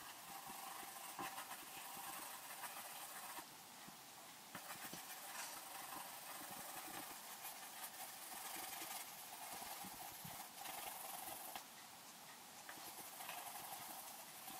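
Graphite pencil hatching on paper: a faint, steady scratching of many short strokes, easing off briefly twice.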